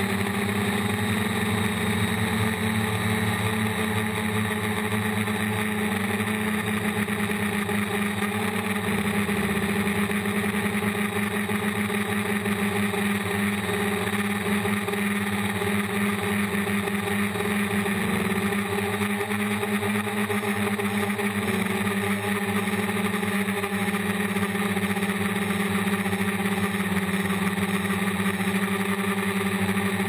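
DJI Flame Wheel F450 quadcopter's four brushless motors and 8-inch propellers humming steadily, heard from the GoPro mounted on the frame, with brief small shifts in pitch as the motors adjust their speed.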